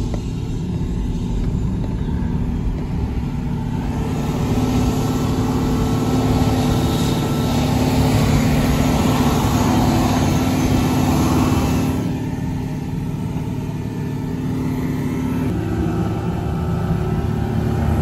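Vehicle engine and driving noise heard from inside a pickup truck's cab, a steady hum that swells a few seconds in and eases again about two-thirds of the way through.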